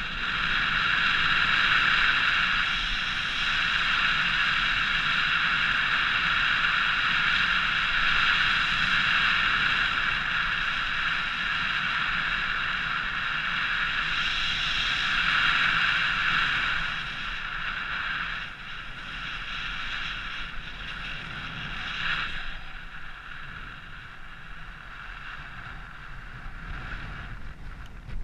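Paragliding variometer sounding a continuous high climb tone in a strong thermal, with wind rushing over the microphone. The tone is loudest for the first two-thirds and weaker after about 17 seconds.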